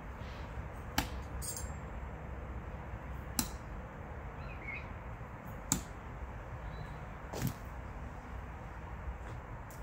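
Throwing knives striking a tree trunk: four sharp thunks about two seconds apart, the last a little longer and duller.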